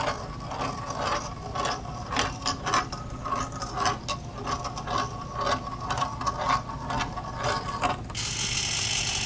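Steel ball rolling through the zigzag track of a 3D-printed plastic Congreve clock tray, heard close up: a stream of irregular clicks and rattles as it knocks against the track's walls at each turn. About eight seconds in, a steady whir starts as the RC servo motor tilts the tray the other way.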